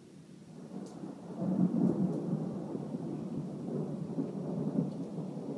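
Thunder rolling: a low rumble builds about half a second in, is loudest around two seconds in, and rumbles on unevenly after that.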